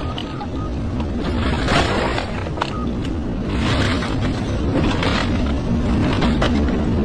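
Excavator's diesel engine running under load with surging noise and a few sharp knocks of demolition work.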